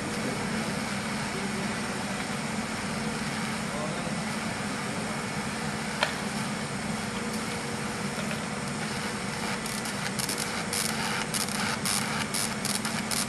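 Steady hum and hiss of a welding workshop, with a single sharp click about six seconds in and irregular crackling setting in around ten seconds in.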